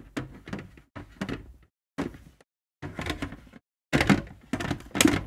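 Hard plastic parts of a Hasbro Black Series Darth Vader helmet knocking and clunking against each other in a string of separate knocks, as the pieces are worked together to find where their magnets seat.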